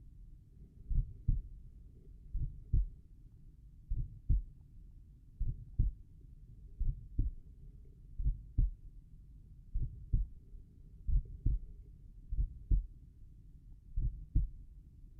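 Slow, relaxed human heartbeat recorded at the tricuspid valve area: paired lub-dub thumps, one beat about every one and a half seconds (around 40 a minute).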